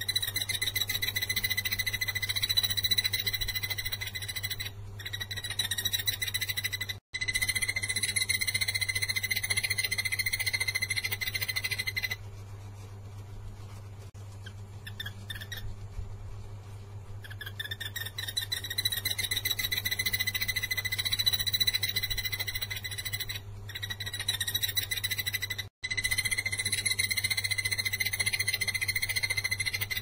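Takur tenggeret barbet (yellow-eared barbet) calling: a fast, even trill on one steady pitch, kept up in long bouts of several seconds, with a pause of a few seconds around the middle. A low steady hum runs underneath.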